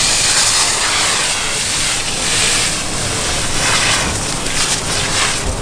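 Fire hose nozzle spraying water onto smouldering brush: a loud, steady hiss of the spray and of water striking the burnt ground, swelling and easing as the stream is moved. A faint low hum runs underneath.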